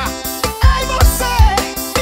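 Piseiro (gospel pisadinha) music: a hard kick drum on a fast, steady beat, with a melody line that bends up and down in pitch over it.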